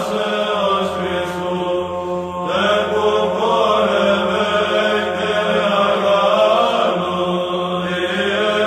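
Orthodox Byzantine chant: a sung melody that moves and bends over a steady held drone (ison) underneath.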